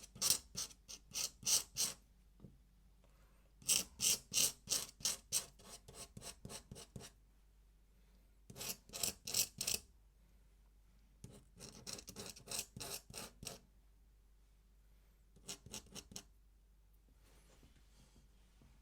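Pen on paper: quick repeated scratchy ink strokes, about three a second, in five bursts with short pauses between, the last one brief.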